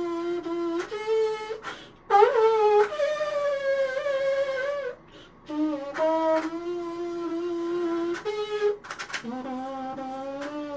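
3D-printed rectangular trumpet playing a phrase of held notes with short breaks between them, slightly out of tune but fairly close.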